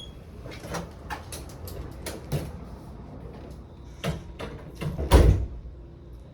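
A run of scattered clicks and knocks, like a door or cupboard being handled, with a heavy thump about five seconds in.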